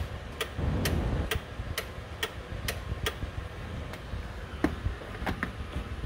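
Steady ticking, sharp clicks about two a second, with a short low rumble about a second in.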